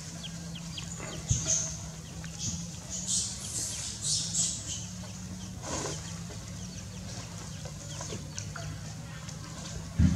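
A domestic chick peeping over and over in short high chirps, over a steady low hum, with a couple of soft thumps.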